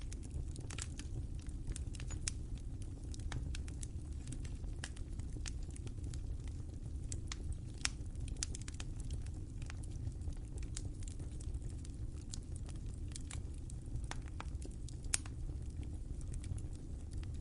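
Wood fire crackling: irregular sharp pops and snaps over a steady low rumble, with two louder pops about 8 and 15 seconds in.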